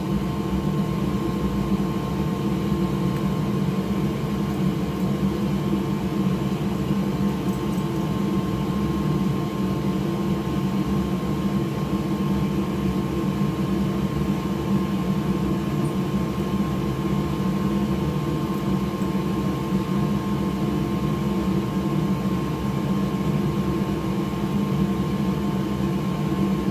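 Steady hum of an electric fan or blower motor at the repair bench, running at an even pitch and level with no change.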